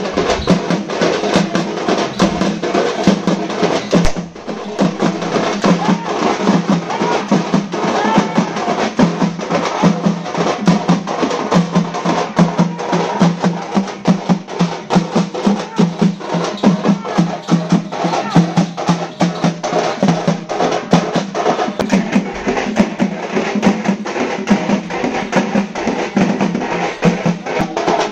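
Parai frame drums beaten with sticks in a fast, driving rhythm, with a brief drop in loudness about four seconds in.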